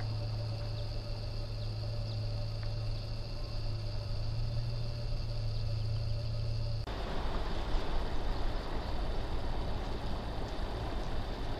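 Steady hum of a camera drone's motors and propellers, with a strong low drone and a few steady higher whining tones. About seven seconds in it changes abruptly to a rougher, noisier rushing sound with a high whine still in it.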